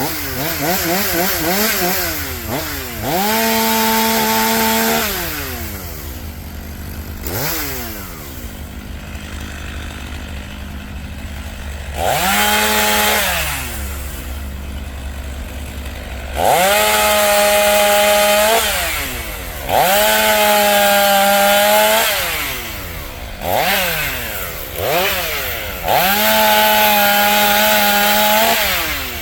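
Chainsaw repeatedly revving up to full speed for one to three seconds and dropping back to idle between cuts, as when limbing a fallen bur oak.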